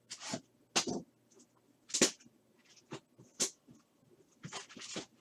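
Plastic shrink-wrap on a sealed trading-card hobby box crinkling and crackling as hands work it open, in a series of short, sharp rustles and scratches, about seven in all.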